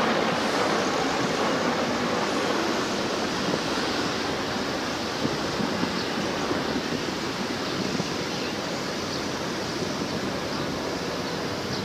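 Military aircraft engine noise: a steady rushing sound that slowly fades as the aircraft moves away.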